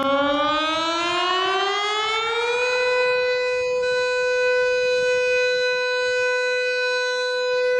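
Civil defense–style warning siren winding up, its pitch rising for about two and a half seconds, then holding one steady tone.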